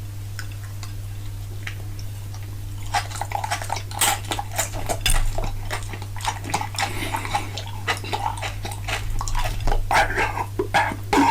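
Close-miked mukbang eating sounds: wet chewing and smacking mouth noises with some clinks of cutlery, dense from about three seconds in, over a steady low hum.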